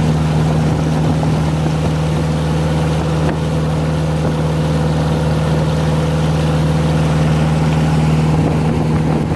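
Toyota Kijang 4K four-cylinder car engine driving a wooden river boat underway, running with a steady, even drone that holds one pitch throughout.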